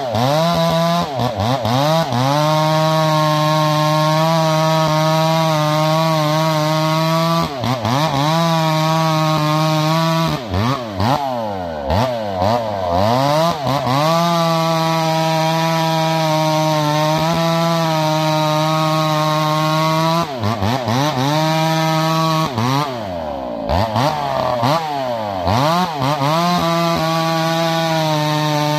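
Chainsaw sawing through a felled log to cut firewood lengths, held at a steady high pitch at full throttle under load. A few times the revs fall away and climb back up between cuts.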